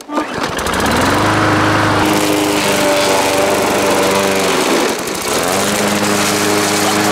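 Gasoline push lawn mower pull-started, catching at once and settling into a steady run. About five seconds in the engine briefly bogs down and recovers as the blade chews through a red cabbage.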